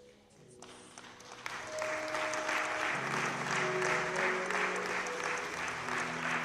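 A congregation breaking into applause that swells to full clapping about a second and a half in. Sustained chords of background church music play underneath.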